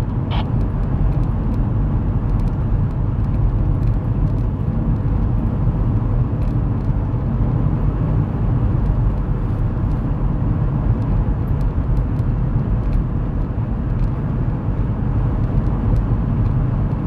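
Steady road and engine noise heard from inside the cabin of a car driving at speed: a constant low rumble of tyres and engine with no siren sounding.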